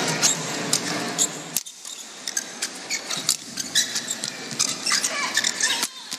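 Badminton rally: sharp racket hits on the shuttlecock at irregular spacing, mixed with short squeaks of players' shoes on the court. A denser, louder sound in the first second and a half cuts off abruptly.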